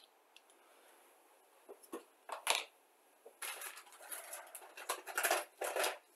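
Small plastic model-kit parts being handled and fitted: a couple of sharp clicks and taps about two seconds in, then a stretch of scraping and rustling with more clicks.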